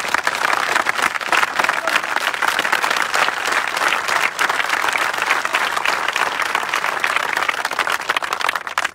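Large crowd of people clapping their hands: dense, steady, loud applause.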